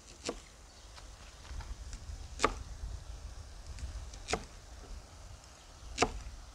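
Cleaver chopping an ear of corn into rounds on a wooden chopping block: four sharp chops, roughly every two seconds, each blow going through the cob and knocking into the wood.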